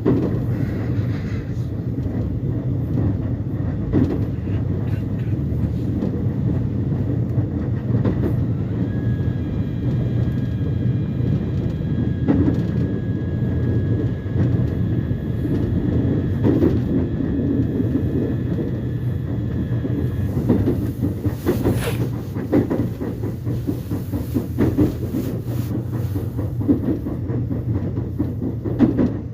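Subway train running between stations, heard from inside the car: a steady low rumble of wheels on track with scattered clacks over the rail joints. A faint steady high whine holds for about ten seconds in the middle, and the clacks come more often near the end.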